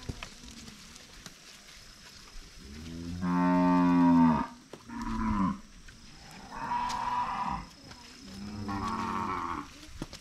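Young heifers mooing four times, each moo about a second long, starting about three seconds in. The first moo is the loudest and drops in pitch as it ends.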